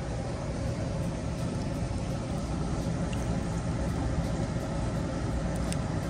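A steady mechanical drone with a low rumble and a faint constant hum, unchanging throughout.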